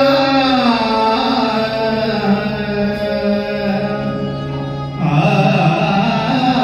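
Sikh kirtan music in raag style: sarangi and harmonium holding long notes that slide down about half a second in, with a louder new phrase coming in about five seconds in.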